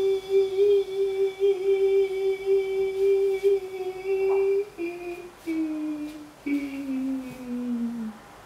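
A man's voice holding one long wavering note, hummed or sung with little change, then stepping down through three or four lower notes in a falling line. It stops shortly before the end.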